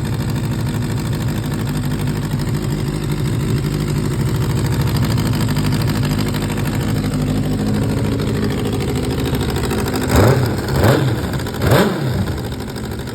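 2004 Suzuki GSX-R600 inline-four engine idling, then blipped three times in quick succession near the end, each rev rising and dropping straight back to idle. It runs with a major exhaust leak.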